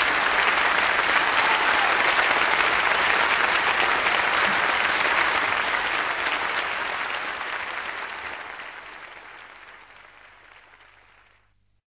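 Audience applauding steadily, then fading out over the last few seconds.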